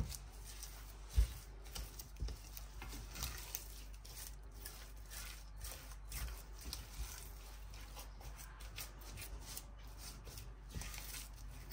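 Silicone spatula stirring and scraping a thick coconut-sugar-egg-white mixture around a stainless steel saucepan as it warms on low heat: faint, irregular scrapes, with one louder knock about a second in.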